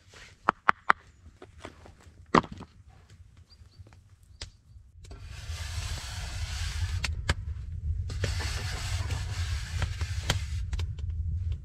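A few sharp wooden knocks as sawn log rounds are picked up and set down. Then a spade scraping across a sandy earth floor in two long strokes, over a steady low rumble.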